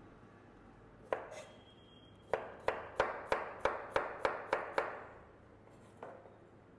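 Chef's knife slicing a carrot on a plastic cutting board: two separate cuts, then a quick even run of about nine chops, roughly three or four a second, and one last cut near the end.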